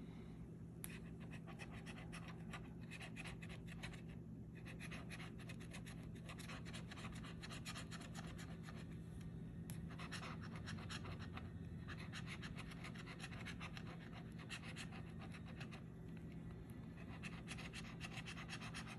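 A bottle-opener-shaped scratcher tool scraping the latex coating off a scratch-off lottery ticket: quick, repeated faint scraping strokes with a few brief pauses.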